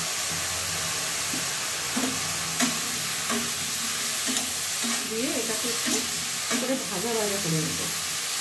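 Sliced button mushrooms sizzling in hot oil in a metal kadai, stirred with a flat metal spatula that scrapes and taps against the pan several times.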